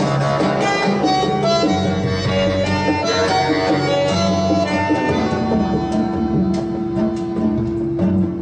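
Instrumental music played back through a hi-fi system, with plucked and sustained pitched notes and a long held note in the second half.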